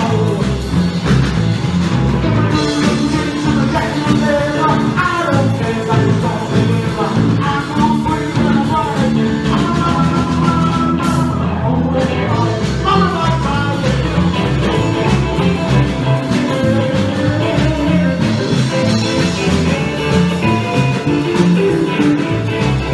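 A live rock and roll band playing: drums, electric bass and electric guitar, with a man singing.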